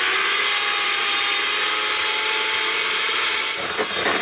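Electric mixer beating cream, running steadily at a constant pitch; its steady tone breaks up about three and a half seconds in.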